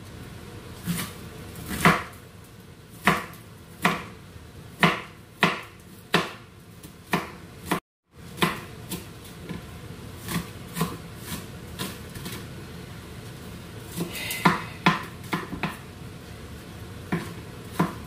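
Onions being chopped with a knife on a chopping board: separate sharp knocks of the blade, about one or two a second.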